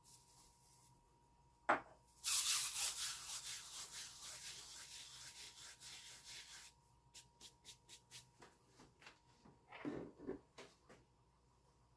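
Dried herb leaves crushed and rubbed between the palms over a plate: a dry rustling hiss for about four seconds, then a run of light crackles and a couple of soft knocks near the end.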